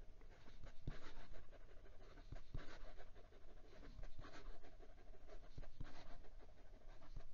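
Fountain pen nib (a Bobby Bent nib on a Moonman Ti 200) scratching lightly across notebook paper in quick, looping cursive strokes, with a faint uneven rasp that swells and fades stroke by stroke.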